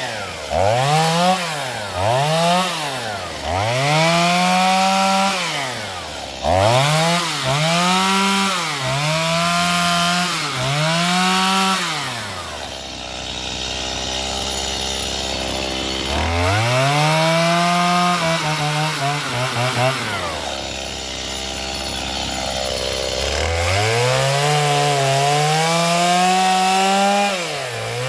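Stihl MS210 two-stroke chainsaw revving and cutting wood: a few quick throttle blips, then a series of cuts at full throttle, each dropping back toward idle between, with two longer idling spells partway through.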